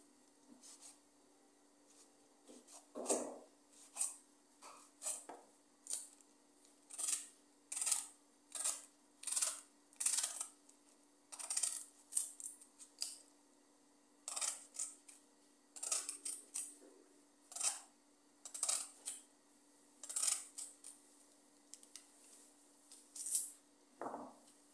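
Kitchen knife slicing raw cabbage held in the hand into fine shreds: a run of short, crisp crunches, one per cut, at roughly one or two a second, broken by a few short pauses.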